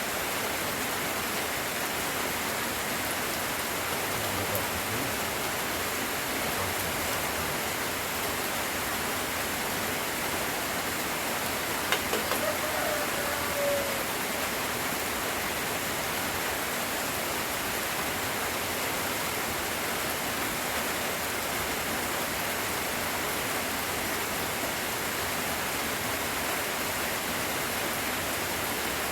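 Steady rain falling, an even hiss throughout. About twelve seconds in there is a single sharp knock, followed by a short, faint tone lasting a second or two.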